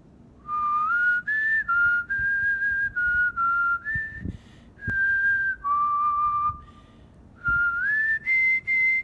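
A man whistling a tune with pursed lips: clear single notes, mostly held for about half a second, stepping up and down with small slides between them. The melody stops briefly twice, about four seconds in and again about seven seconds in.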